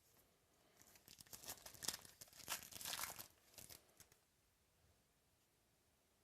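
Thin plastic card packaging crinkling and rustling in the hands for about three seconds, then fading out.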